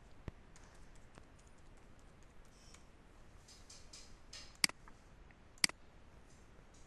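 Soft computer-keyboard keystrokes as an IP address is typed in, then two sharp mouse-button clicks about a second apart, a little past halfway through.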